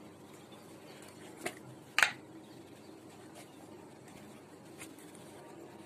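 A couple of sharp clicks or knocks from spice containers and a spoon being handled, the louder one about two seconds in, then a faint tick later, over quiet room noise.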